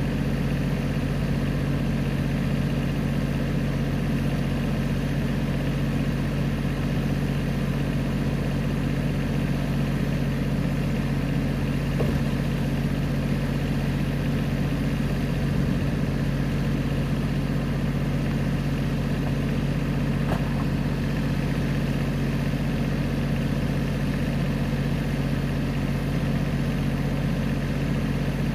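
Compact utility tractor's engine idling steadily at a constant pitch.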